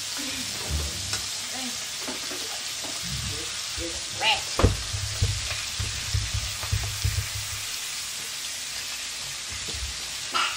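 Lamb chops sizzling steadily as they fry in a pan, with irregular low knocks and bumps and a sharp clack about four and a half seconds in.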